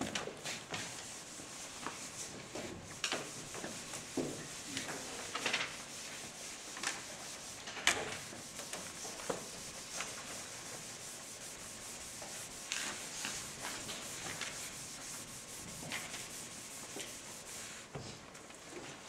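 Chalkboard eraser sponge rubbing across a chalkboard in repeated wiping strokes, clearing chalk writing.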